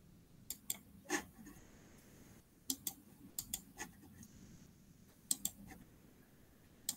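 Computer mouse clicks: about a dozen sharp, faint clicks, often in quick pairs, at irregular intervals over a low room hum.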